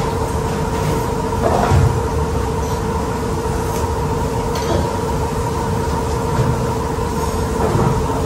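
Steady mechanical hum with a constant two-note drone, with occasional short clinks of forks and spoons against cast-iron sizzling steak plates.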